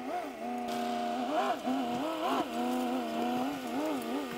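Ram pickup's Hemi V8 engine revving up and down in short surges as it hauls a camper trailer over rough ground.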